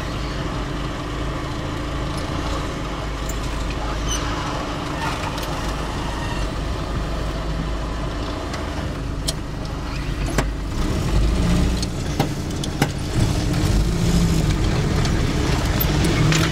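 Steady engine and road rumble heard from inside a vehicle driving slowly, with several sharp knocks in the second half as the vehicle jolts over the rough track.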